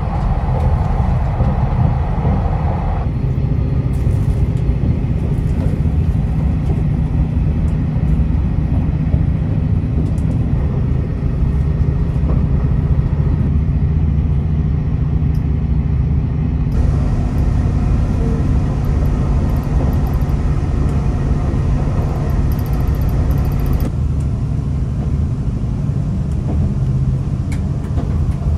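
Steady low rumble of a diesel train running, its higher noise shifting in tone a few times.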